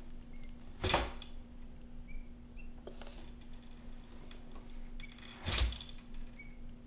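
Two dull knocks on a plastic tub, about a second in and again near the end, as the monitor lizard shifts its grip and claws. A few faint, short high peeps from a live quail chick come in between.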